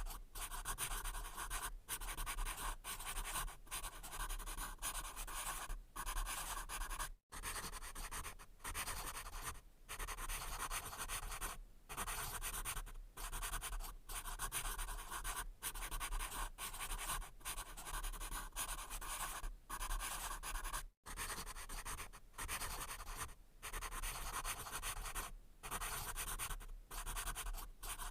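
Pencil scratching across paper in a run of strokes, each a second or so long with short breaks between, with a low hum under it.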